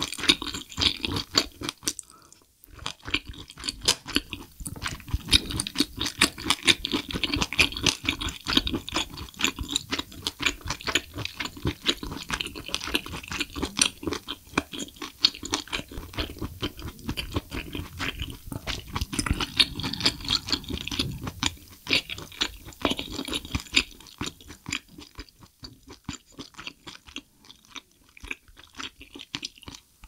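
Close-miked chewing of firm, springy braised abalone: a rapid run of wet clicks and squelches from the mouth, with a brief pause about two seconds in. It grows sparser and quieter near the end.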